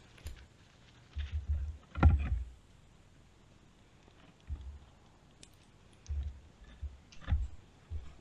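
Wooden logs of a log firewall being lifted and set down, knocking against each other in a few separate dull thumps, the loudest about two seconds in.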